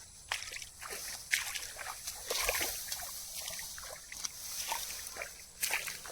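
Water splashing and sloshing in short, irregular bursts, with scattered small clicks.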